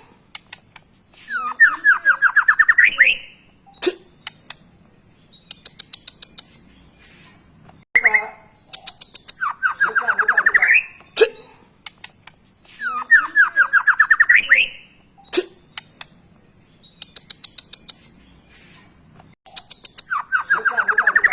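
White-rumped shama (murai batu) song played as a repeating phrase: a rapid trill that rises in pitch, with high buzzy notes over it, followed by a run of short sharp clicking notes. The phrase recurs about every six seconds.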